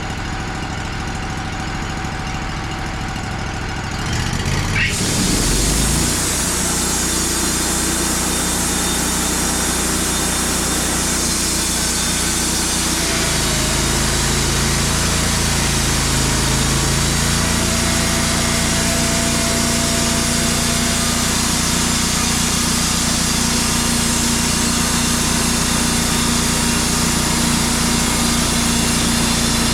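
Wood-Mizer LT35 portable band sawmill running: the engine hums low for the first few seconds, picks up about five seconds in, then runs steadily at speed with a louder hiss over the hum.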